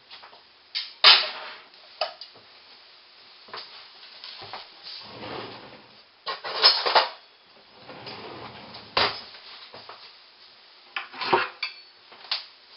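Metal kitchen utensils clattering against pots and pans on the stove while food is served out: separate sharp clinks and knocks every second or two, the loudest about a second in.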